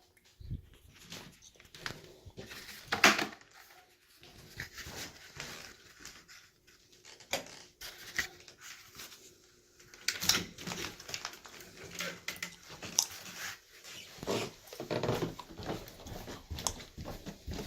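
Pet dogs making noise, among irregular knocks and movement sounds; the loudest is a sharp knock about three seconds in.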